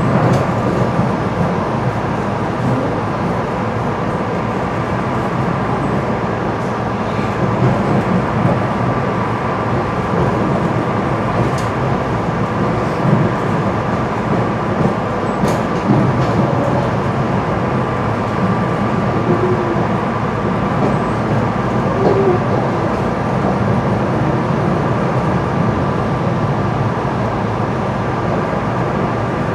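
SEPTA Silverliner IV electric multiple unit running along the tracks, heard from inside the car: a steady rumble of wheels and running gear with a faint steady whine. A couple of sharp clicks come about halfway through.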